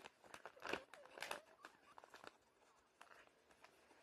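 Faint rustling and crinkling of a brand-new vacuum bag being handled, a few light crinkles in the first second and a half, then near silence.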